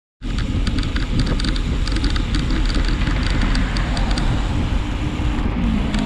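Wind buffeting the microphone of a handlebar-mounted camera on a moving road bike, a dense low rumble with tyre and road noise, and light irregular ticking or rattling over it.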